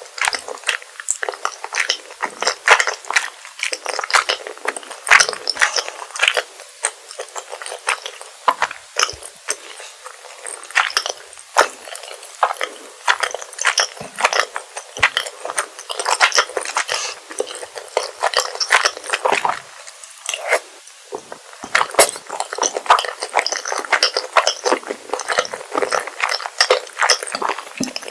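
Close-miked eating sounds of rosé tteokbokki: dense, steady wet chewing and squishing of chewy rice cakes in creamy sauce, with occasional clinks of cutlery on the dish.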